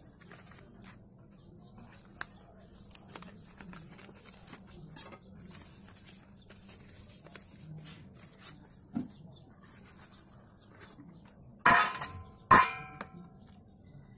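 Paper and cardboard rustling with light clicks as a slate pencil box is opened and its wrapper torn. About twelve seconds in, slate pencils clatter against a stainless steel bowl twice: two loud clinks, each ringing briefly.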